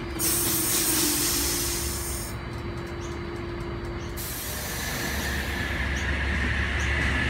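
Electric double-deck suburban train running past the platform: steady rumble and hiss, with a held hum that fades about four seconds in and a high whine that comes in after about five seconds and grows louder.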